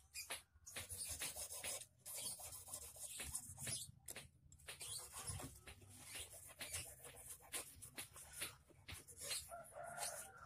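A small hand file rasping against the steel wire of a handmade eel-fishing hook held in a clamp, in quick repeated strokes.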